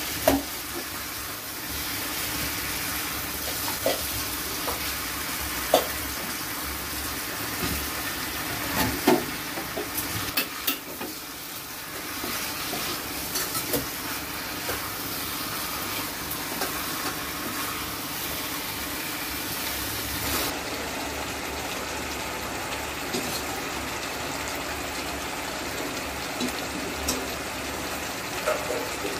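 Chicken pieces sizzling in thick spiced masala in a nonstick pan as they are fried down for chicken kosha, stirred with a wooden spatula. A steady frying hiss runs throughout, broken by scattered knocks and scrapes of the spatula against the pan.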